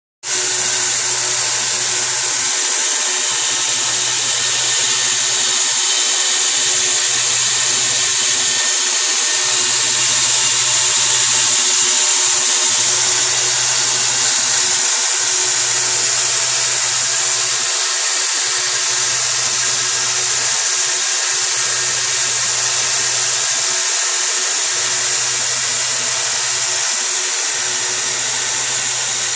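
Home-built knife-making belt grinder running steadily with no work on it: the sanding belt hisses over its wheels with a constant high whir.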